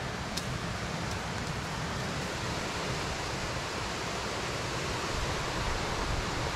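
A mountain trout stream rushing: a steady, even roar of running water with no change in level.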